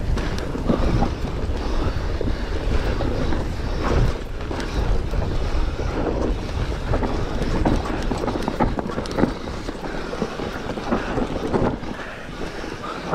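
Mountain bike descending loose, rocky singletrack: tyres crunching over dirt and stones and the bike rattling over bumps in many short knocks, with wind buffeting the microphone.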